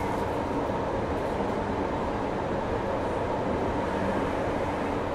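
Inside a JR Hokkaido 733 series 3000-subseries electric multiple unit running along the line: steady rolling noise with a faint steady hum underneath.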